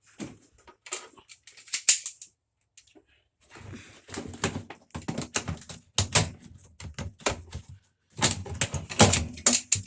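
Rapid, irregular clicking and clacking from hand tools and parts being worked during washer disassembly, in three bursts.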